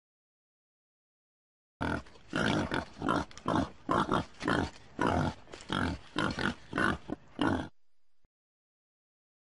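Wild boar grunting: a run of short, rough grunts, about two or three a second, starting about two seconds in and stopping a little before the end.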